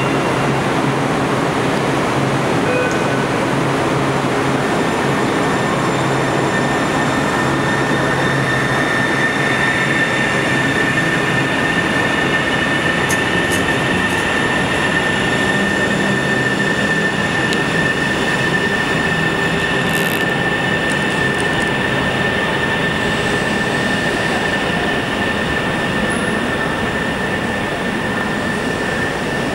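Kinkisharyo-built Sound Transit Link light-rail train pulling out of an underground station, with a steady rumble of the train running. From about eight seconds in, a high whine rises and then holds at one steady pitch.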